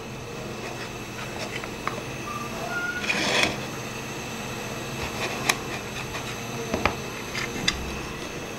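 A knife cuts the crusts off a slice of white bread on a ceramic plate. There is a scraping crunch about three seconds in, and a few sharp clicks of the blade against the plate, over a steady low hum.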